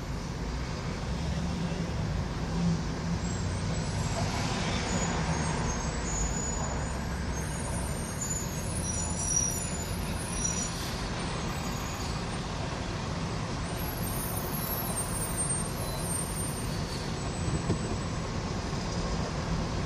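New York subway train running across the bridge: a steady rumble with scattered short, high-pitched wheel squeaks.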